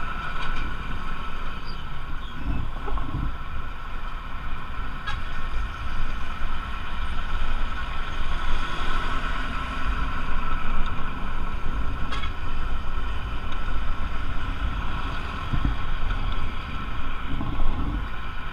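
Intercity bus running on the road: steady engine and road rumble with a constant high whine over it.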